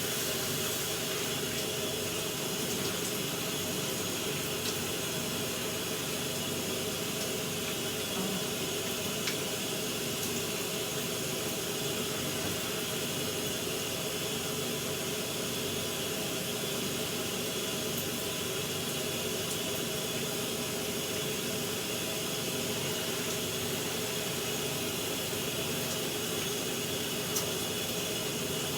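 Shower running: a steady hiss of water spray, with a few faint taps.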